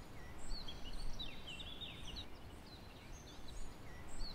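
Small birds chirping and trilling over a steady low rumble of outdoor ambience: quick high chirps and a short run of rapid notes about a second in.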